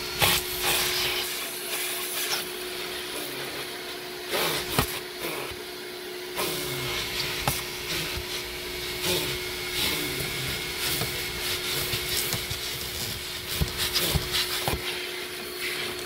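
Vacuum cleaner running with a steady whine while its hose nozzle is worked over a car's footwell carpet. Irregular knocks and scrapes come as the nozzle bumps and drags across the floor.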